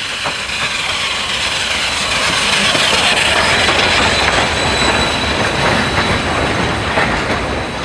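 NZR JA class 4-8-2 steam locomotive and its passenger carriages rolling past close by, wheels clicking over the rail joints with a thin high squeal. It is loudest as the locomotive goes by, about three seconds in, then eases slightly as the carriages follow.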